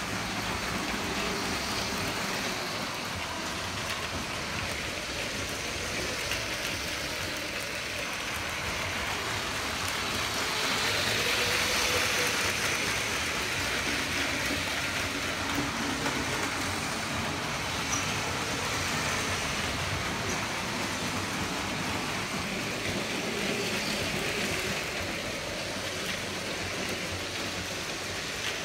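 Motorised LEGO trains running around plastic track: a steady clatter of wheels on the rails with motor hum, louder for a few seconds around the middle as a train passes close.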